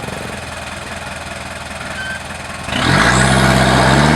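An off-road 4x4 pickup's engine runs steadily under load. About three seconds in it revs up hard over a loud rushing noise, the truck working at an obstacle with its wheels spinning.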